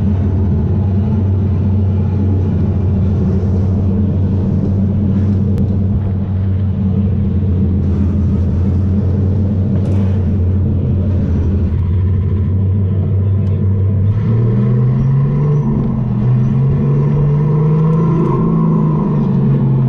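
Electric go-kart's motor humming over a steady rumble. About 14 seconds in, the hum starts to rise and fall in pitch as the kart speeds up and slows.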